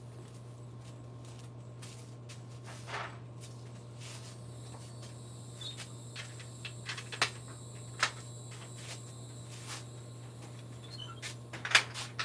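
Scattered light knocks and clicks, a few sharper ones about seven, eight and twelve seconds in, over a steady low hum.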